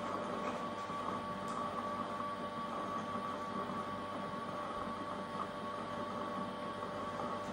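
Ecovacs Deebot robot vacuum's base station running: a steady motor whir with a constant high hum.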